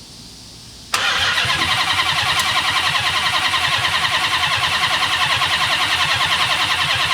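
Starter cranking the supercharged Hellcat Redeye V8 in a Dodge Magnum, starting about a second in with a fast, even rhythm and stopping abruptly near the end. The engine turns over but never fires.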